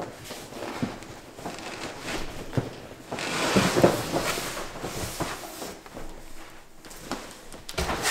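Packing being handled as a part is worked out of a cardboard box: rubbing and scraping of cardboard and foam with scattered knocks, loudest for a second or so about three seconds in.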